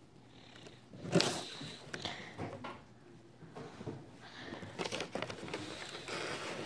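Marker scratching on paper while writing, with knocks and handling bumps, the loudest a sharp knock about a second in.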